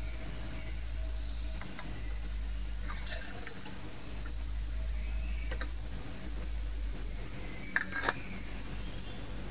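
Solution poured quickly into a glass Erlenmeyer flask, followed by a few sharp clicks, the loudest pair near the end, over a steady low rumble.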